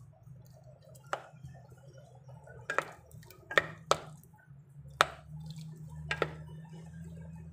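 Wooden spoon stirring noodles in a stainless steel pot, knocking against the pot's metal side in sharp, irregular clicks, about eight in all, over a low steady hum.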